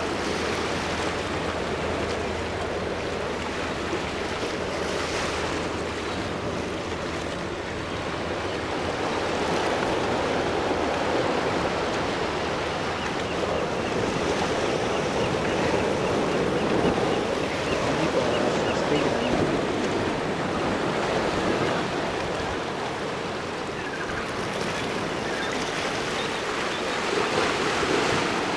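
Steady rushing noise of moving water, like surf.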